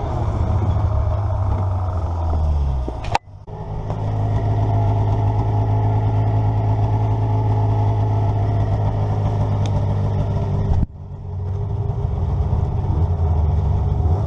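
A vehicle engine running at a steady speed, slowing with a falling pitch just before an abrupt break a little after three seconds. It runs steadily again until a second abrupt break near eleven seconds, then picks up again.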